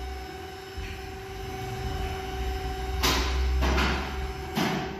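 Steady machine hum over a low rumble, with two short bursts of noise about three seconds and four and a half seconds in.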